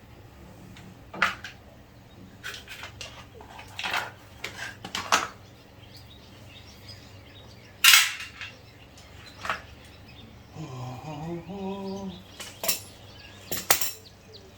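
Irregular metal clinks and knocks of tools and parts being handled on a portable generator under repair, the loudest about eight seconds in. A short pitched sound that rises and then holds comes a little after the middle.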